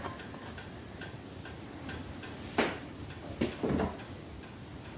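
Kitchen utensil clicking and knocking against a frying pan as browned sausage is scooped out and added to a pot of melting cheese: scattered light clicks, one sharper knock about halfway through, then a couple of short scrapes.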